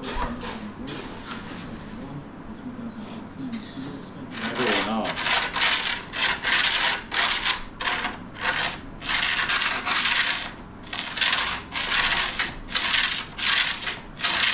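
Repeated rasping strokes of ski and snowboard tuning, a file or scraper worked along the board, about one and a half strokes a second. The strokes are light for the first few seconds, then stronger and even.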